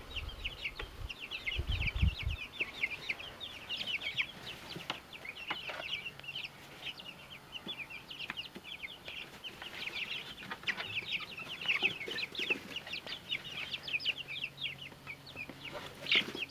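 A brooder full of young chicks peeping continuously: many short, high peeps overlapping in a steady chorus. A few low bumps come about two seconds in.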